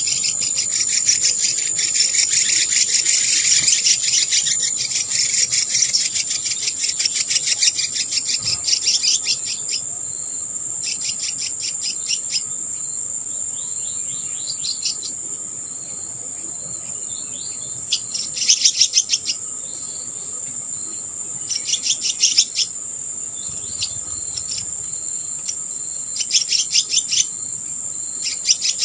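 A steady, high-pitched insect trill, overlaid with bouts of rapid, repeated chirping. The chirping is thick for the first several seconds, then comes back in short trains every few seconds.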